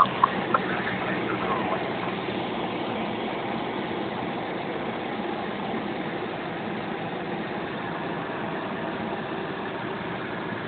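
Cessna 172's engine and propeller running steadily, heard from inside the cabin in flight, with a few sharp clicks in the first second.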